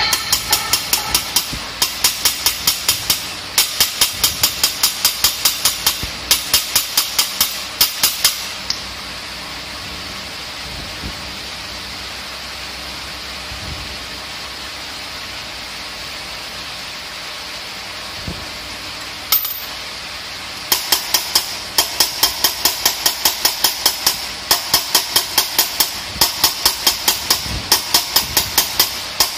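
Hand valve lapping on an engine cylinder head: a lapping stick spun back and forth between the palms turns the valve against its seat, a quick rhythmic ticking about five times a second in bursts of a few seconds. It stops for about twelve seconds in the middle and starts again about twenty seconds in.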